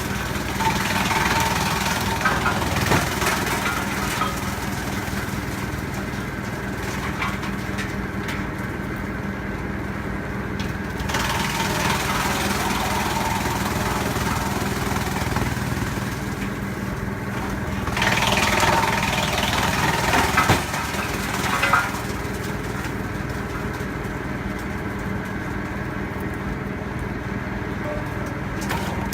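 Wood chipper running on test, its engine holding a steady note. Three times it turns louder and rougher for a few seconds: at the start, around eleven seconds in, and around eighteen seconds in.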